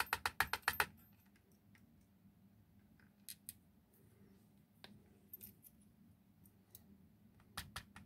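Light metallic clicks from a brass Ruko 600 lock cylinder, its key and tweezers being handled: a quick run of about ten clicks in the first second, then a few scattered single ticks.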